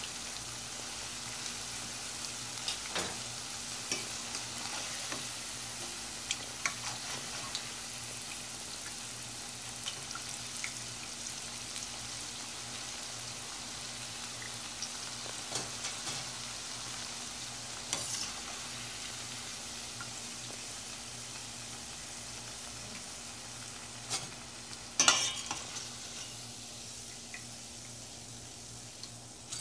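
Onion pakodas deep-frying in hot oil with a steady sizzle, while a slotted spoon lifts them out, knocking and scraping against the steel pan now and then; the loudest clatter comes about 25 seconds in.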